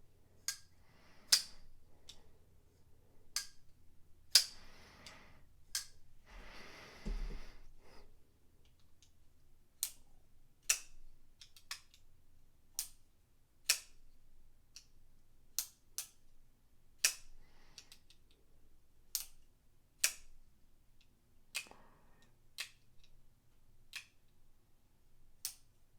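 Sencut liner-lock folding knife blades flicked open and snapped shut over and over, each stroke a sharp click from the detent and the liner lock, about one a second in the second half, with some handling rustle before that.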